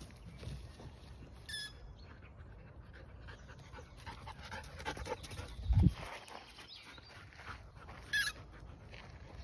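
Belgian Malinois whining briefly in a high pitch twice, about one and a half seconds in and near the end, over soft scuffs on dirt. A single loud low thump comes about six seconds in.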